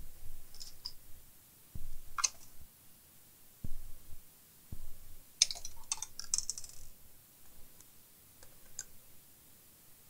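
Scattered small clicks, with a cluster about halfway through and a few short, dull knocks, from tools and small parts being handled as a portable speaker's casing is screwed back together on the bench.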